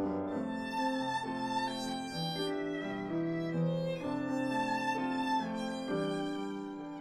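Background music: a violin playing a melody over lower accompanying notes.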